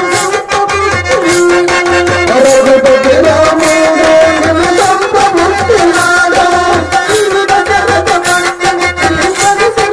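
Live drama stage music: a harmonium holding a melody over a tabla beat of about one stroke a second, with a voice singing a wavering line from about two seconds in.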